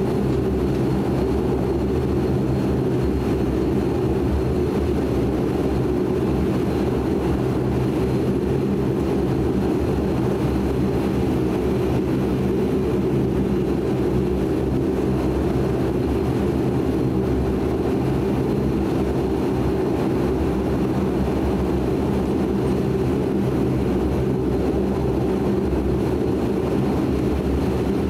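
Steady cabin drone of a De Havilland Canada Dash 8-400 taxiing on its two Pratt & Whitney PW150A turboprops, heard from inside the cabin. Several steady low propeller tones sit under an even rushing hum, with no change in power.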